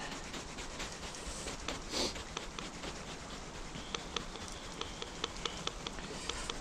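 A centrepin fishing reel ticking as it turns while the float trots down, light clicks at about four to five a second starting about two seconds in. A steady rush of flowing river water runs underneath.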